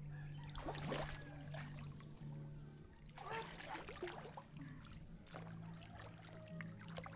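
Background music with low held notes that stop and start, over water sloshing now and then about a second in and around the middle.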